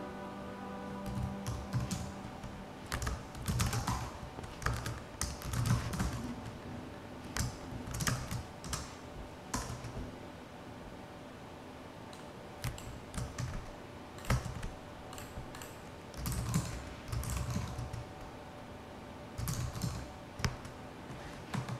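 Computer keyboard typing in several bursts of rapid key clicks with short pauses between.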